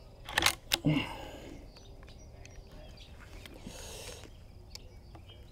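Cartridge boxes and rifle cartridges being handled on a shooting bench: a few sharp clicks and rattles in the first second, then faint small ticks and rustling.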